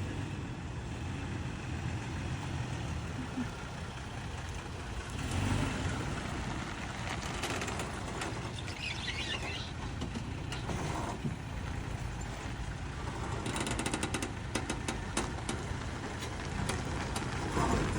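Toyota Tacoma pickup giving off scattered creaks and pops over its steady running noise, with a quick cluster of clicks about three quarters of the way through.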